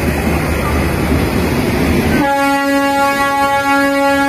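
A steady rushing roar from the electric locomotive standing at the platform, then about halfway through the WAP-7's horn starts and is held as one long, steady note.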